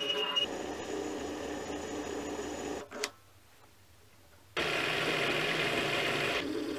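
Mini lathe driven by a brushless sewing-machine servo motor, running while cutting metal. About three seconds in it stops with a click, leaving near quiet, then starts again abruptly about a second and a half later and runs on through the turning cut.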